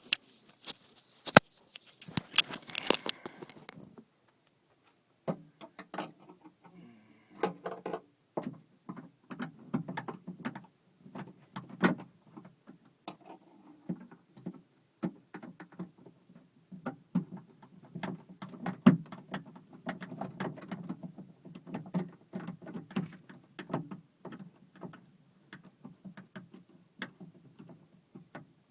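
Irregular clicks, taps and light rattles of a screwdriver and hands working on the handle mechanism inside a 2006 Pontiac Vibe's door, with a brief silent break about four seconds in.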